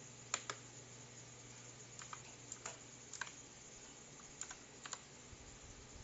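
Faint, unhurried keystrokes on an AULA F2088 mechanical keyboard: about eight separate key clicks, several of them in quick pairs, with pauses between.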